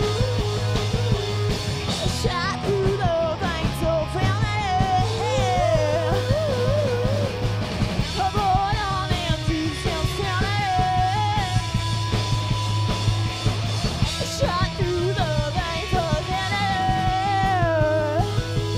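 Live punk rock: a woman singing a wavering melody into a handheld microphone over a full band with electric guitar, bass and a fast, driving drum beat.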